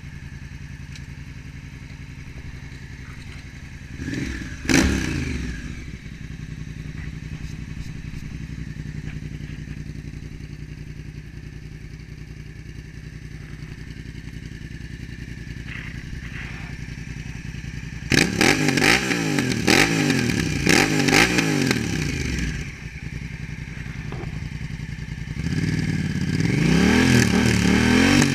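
A 2018 Honda Africa Twin's 998 cc parallel-twin engine running through its exhaust with the dB killer removed. It idles, gives one sharp throttle blip about four seconds in, a run of several quick revs well past halfway, and climbing revs near the end.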